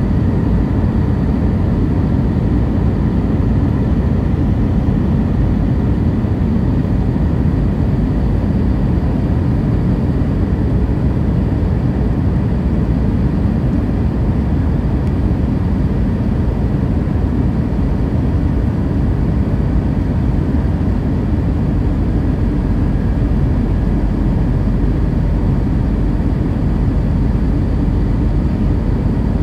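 Steady jet airliner cabin noise heard from a window seat beside the engine on final approach: an even low rumble of engine and airflow with a faint steady whine.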